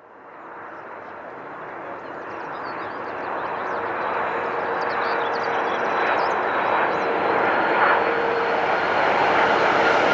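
Airbus A330-300 airliner's twin General Electric CF6-80E1 turbofans on final approach with gear down: a jet roar with a steady whine, fading in from silence at the start and growing steadily louder as the aircraft closes in.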